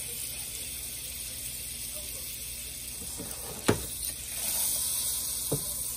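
Butter melting and sizzling in a hot nonstick frying pan: a steady high hiss that grows louder a little past the middle as the pan is swirled. A sharp knock comes just before then, and a smaller one near the end.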